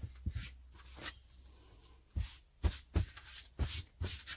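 Hands rubbing and pressing cotton fabric flat on a tabletop, brushing swishes with dull knocks, a few at first and then a quicker run of strokes from about two seconds in, setting a fabric-glued seam.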